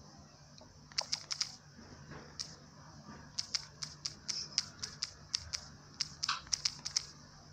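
Phone's on-screen keyboard making a short click with each key tap while a comment is typed: irregular runs of quick clicks with brief pauses, over a faint steady hum.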